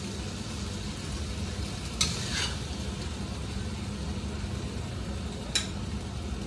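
Metal spatula stirring and scooping in a wok of frying eggplant and bitter gourd, over a steady sizzle and a low hum. Two sharp knocks of the spatula come about two seconds in and again about five and a half seconds in.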